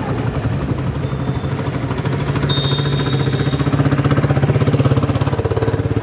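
A small engine running close by with a fast, even throb that swells louder in the middle. A brief thin high tone sounds about two and a half seconds in.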